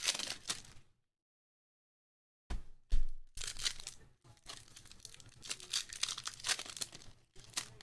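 Foil trading-card pack wrappers crinkling and being torn open, with cards handled, sounding as a dense crackle with sharp snaps. The sound cuts out completely about a second in, then returns with two sharp snaps about half a second apart.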